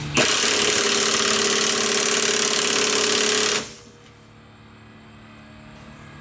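An impact wrench hammering in one continuous rapid rattling burst for about three and a half seconds, then stopping abruptly.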